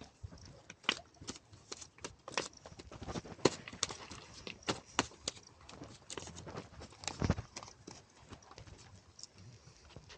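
A run of irregular sharp clicks and knocks, a few a second, with a heavier low thump about seven seconds in.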